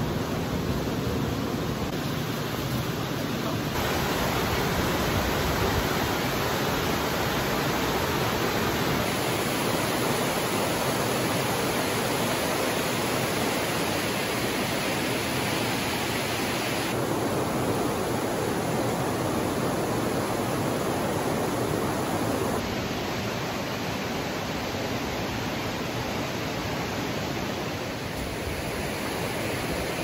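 Mountain stream rushing over rocks and small cascades: a steady hiss of running water, changing abruptly in tone a few times.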